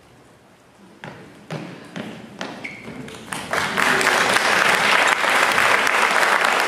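Theatre audience breaking into applause: a few scattered claps about a second in, swelling into full, steady applause from about three and a half seconds in.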